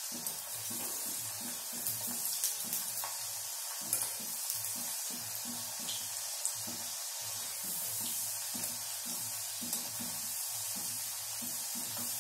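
Potato fries deep-frying in hot oil in a karahi: a steady sizzle with scattered crackles and clicks as a wire skimmer stirs them. Faint music plays underneath.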